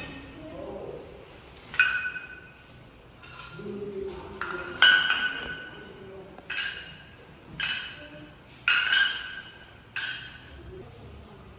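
Shards of a broken vase clinking as they are dropped into a plastic bin bag: about six sharp clinks a second or so apart, each with a brief ring.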